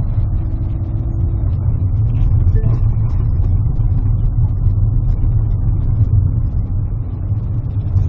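Car engine and tyre noise heard from inside the cabin while driving: a steady low rumble.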